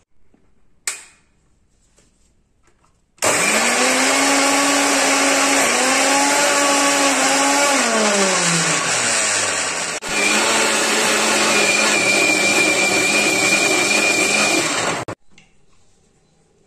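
Electric mixer grinder with a steel jar churning fresh cream and ice cubes to separate butter. A short click about a second in, then the motor starts about three seconds in, slows with falling pitch, speeds up again at about ten seconds and stops abruptly near the end.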